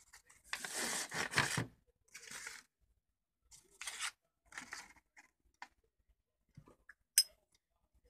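Paper sheets rustling and crinkling as they are handled, in several short bursts, the longest and loudest about a second in. A single sharp click near the end.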